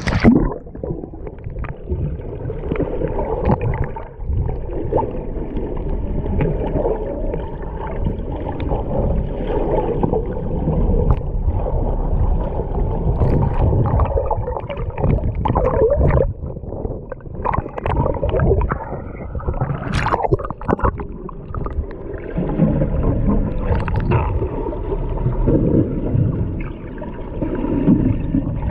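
Muffled water sounds picked up by a GoPro's microphone through its waterproof housing while it is underwater: gurgling water and bubbles with scattered knocks.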